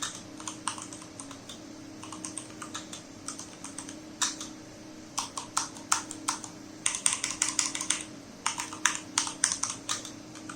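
Typing on an ASUS Claymore mechanical keyboard with Cherry MX Brown switches: irregular runs of quick keystrokes with short pauses between them.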